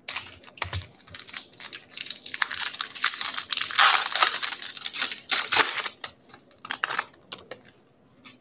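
A 2020 Bowman baseball card pack's foil wrapper being torn open and crinkled by hand. The crackle is loudest about four seconds in and stops about a second before the end.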